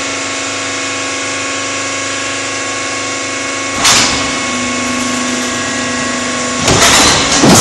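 Concrete block making line (VPS 2000 GT/A) running on test: a steady machine hum of many tones, with a sudden loud clunk about four seconds in. Near the end a louder, rougher mechanical noise sets in as the machine's next stage starts.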